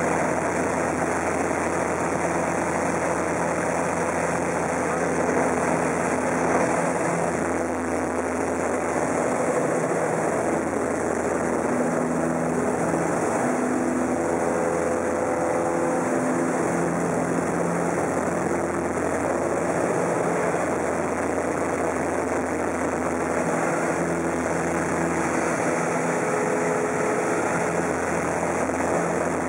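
Super Decathlon's four-cylinder Lycoming engine and propeller running steadily in flight, heard from the cockpit over rushing air noise. The engine note shifts up and down in pitch several times through aerobatic manoeuvres.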